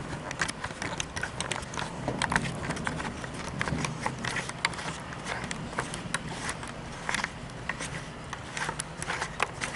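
Storm wind rushing over the microphone, with many irregular sharp clicks and taps throughout.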